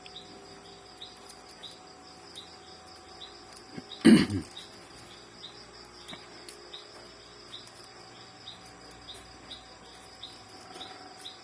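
Rhythmic high background chirping, about two chirps a second, over a steady high insect hiss. A single loud knock about four seconds in.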